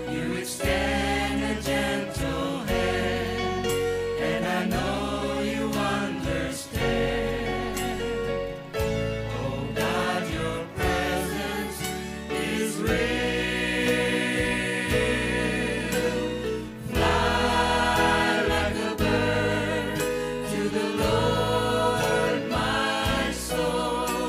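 Gospel choir singing with a band, over a steady low bass line and regular percussion hits.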